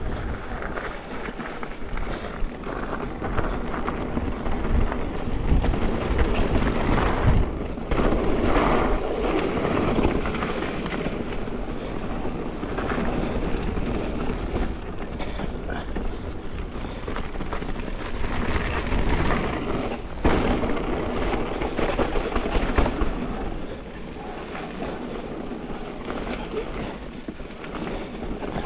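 Mountain bike riding a rough woodland trail, picked up by a GoPro on the bike or rider: tyres running over dirt and rocks and the bike rattling, louder in patches. Sharp knocks come about seven seconds in and again about twenty seconds in.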